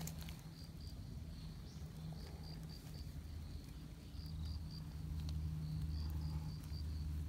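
Insect chirping outdoors in short, high, evenly spaced pulses a few times a second, over a low steady hum that grows a little louder about four seconds in.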